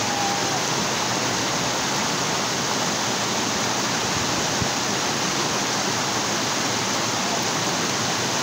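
Creek water rushing steadily over a low rock ledge in a small cascade.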